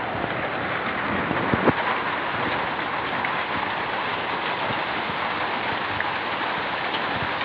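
Heavy rain with hail pelting down: a steady dense hiss scattered with sharp clicks of hailstones striking, with one louder knock about a second and a half in.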